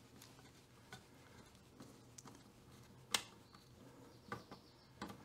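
Faint small clicks and taps of plastic and metal as a new speaker is pressed and seated into a transistor radio's plastic case, with one sharper click about three seconds in.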